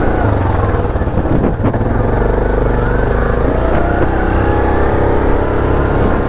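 ATV engine running steadily under way over a rocky gravel trail, its level dipping briefly about one and a half seconds in.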